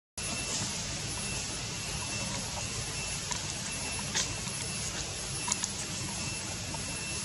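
Steady outdoor background noise: an even hiss over a low rumble, with a few faint short clicks.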